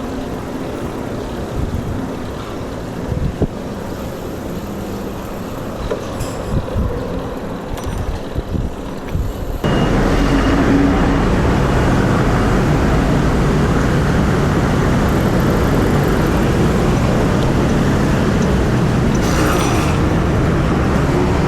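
Road traffic noise from passing vehicles. It jumps suddenly louder and denser about ten seconds in.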